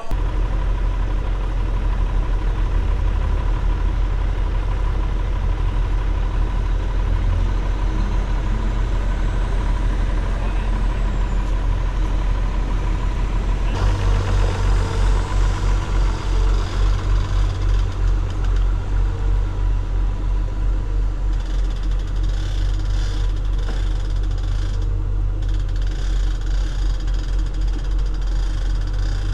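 Large engine running steadily with a deep rumble. About halfway through it shifts to a louder, pulsing throb.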